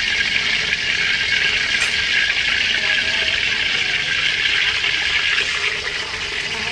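Hot cooking oil sizzling steadily in a wok as fish fries in it.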